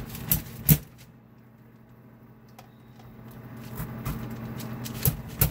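Metal push-down vegetable chopper knocking and clacking as a bell pepper is set in and pressed through the blade grid: two sharp knocks within the first second, then two more near the end. A low steady hum runs underneath.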